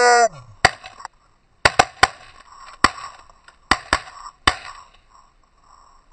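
A ragged volley of about eight shotgun shots from several hunters in quick, uneven succession over about four seconds, fired at geese coming in. It follows the tail of a goose honk at the very start.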